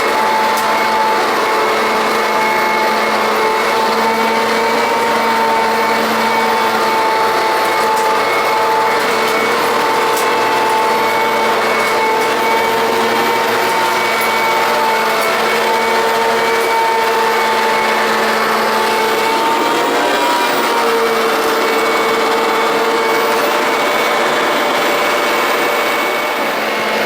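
Perfect P101 commercial upright vacuum cleaner running, its motor giving a loud steady whine whose pitch wavers slightly as it works. The pitch dips briefly about twenty seconds in, and the sound eases a little just before the end.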